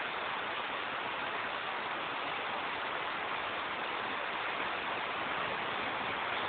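Heavy rain falling: a steady hiss with no change.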